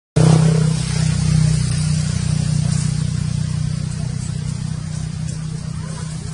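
A steady low mechanical hum, like a motor engine running, cutting in abruptly just after the start and easing off slightly after the first second or two.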